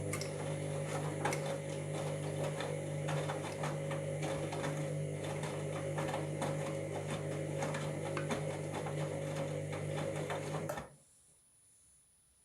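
Washing machine motor turning the drum during the wash: a steady hum with fast, irregular clicking and rattling over it, cutting off suddenly about eleven seconds in as the drum stops. The noise is one the owner takes for worn drum bearings.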